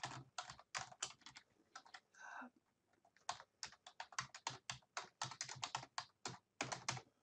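Typing on a computer keyboard: a quick, irregular run of key clicks, with a short lull about two to three seconds in before the clicking picks up again.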